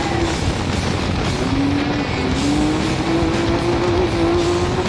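Vehicle engine accelerating through the gears: its pitch drops at a shift about one and a half seconds in and again just past two seconds, then climbs steadily. Music plays along with it.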